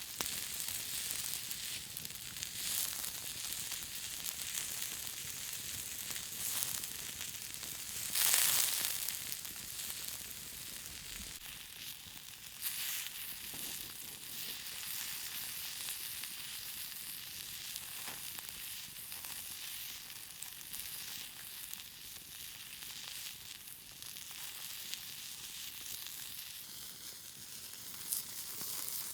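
Meat sizzling on a hot stone grill over a campfire: a steady high hiss with small pops, and a louder flare of sizzling about eight seconds in.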